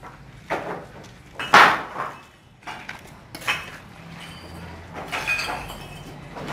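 Bricklayer's trowel knocking and scraping on hollow clay bricks and mortar as a brick wall is laid: a string of separate knocks and scrapes, the loudest about one and a half seconds in, with a short ringing clink around five seconds.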